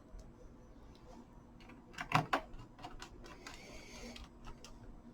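Small screws being put back into a laptop's plastic bottom cover with a screwdriver: scattered clicks and ticks, the sharpest pair about two seconds in, and a brief scraping rasp a little before four seconds.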